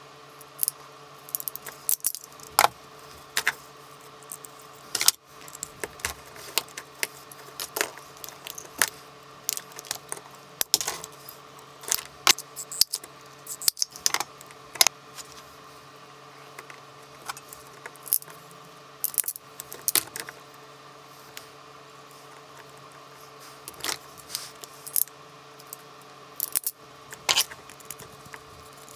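Irregular sharp clicks and metallic clinks of small electrical parts and hand tools being handled on a workbench, with a ratchet crimping tool clicking as terminals are crimped onto wires.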